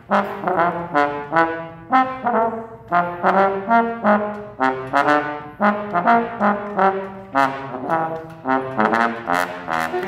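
Trombone solo with a jazz band: a steady line of short, separated notes.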